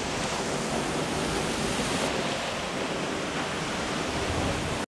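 Steady, full rush of the Hardraw Force waterfall, water falling from the cliff into its plunge pool. It breaks off abruptly just before the end.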